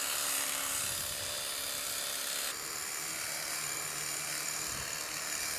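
Electric sheep-shearing handpiece buzzing steadily as its comb and cutter run through a sheep's fleece, a little softer from about halfway in.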